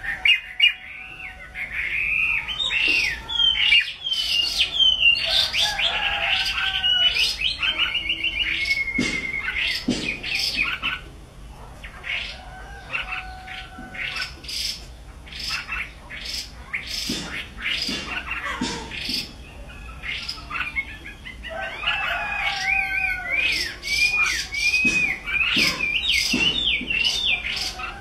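Caged pied hwamei (Chinese hwamei) singing loud, varied whistled phrases that glide rapidly up and down. The song comes in two long runs, with a stretch of scattered short sharp notes and clicks in the middle.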